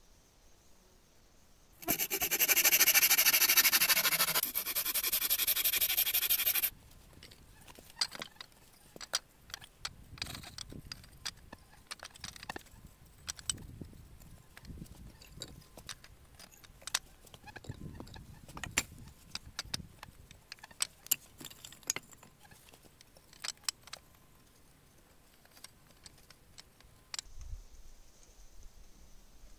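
A loud rasping noise for about five seconds, followed by scattered sharp clicks and knocks of wooden poles being laid side by side across a pole-frame table.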